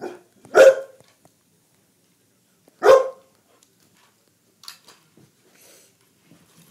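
A dog barking twice, about two seconds apart, at a remote-controlled toy car, with a few fainter clicks later on.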